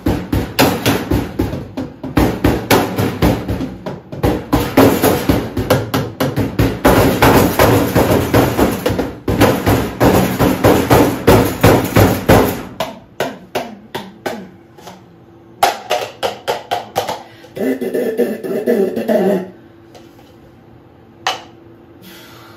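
Found-sound percussion music of rapid knocks and hits. It is dense and fast for about the first twelve seconds, then thins to scattered strikes and a short pitched phrase, and stops. A steady hum is left, with one last knock near the end.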